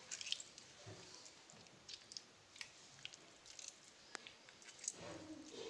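Faint wet squelching and dripping as hands squeeze warm, stretched mozzarella curd over a steel bowl of hot water, pressing the water out of it, with a few small sharp clicks.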